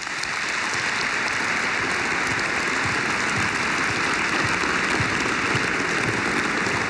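A small seated audience applauding steadily.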